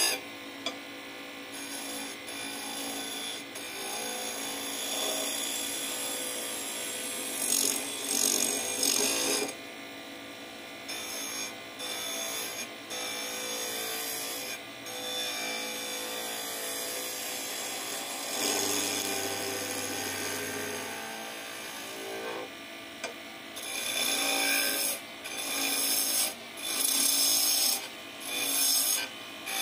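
Steel turning tool cutting into spinning wood on a lathe: a steady hissing scrape as the blade shaves the wood. Near the end it comes in loud strokes about a second apart as the tool is pressed in and lifted off.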